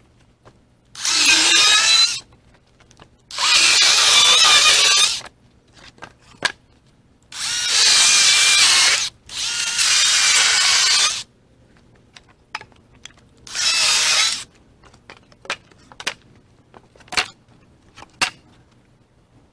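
Battery-powered saw cutting firewood in five short runs of about one to two seconds each, its electric motor whining under load. Short, sharp knocks come between the cuts.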